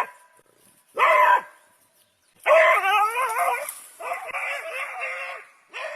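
A dog vocalizing in a series of pitched calls: a short one about a second in, then longer calls whose pitch wavers up and down from about two and a half seconds on.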